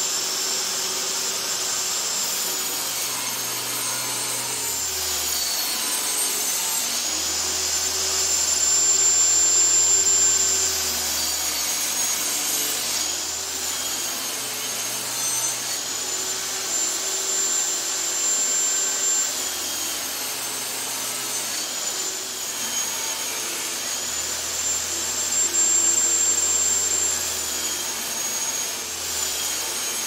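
Portable table saw running and ripping thin strips off a pine board. Its high motor whine dips in pitch and recovers several times, with three louder stretches as the blade cuts.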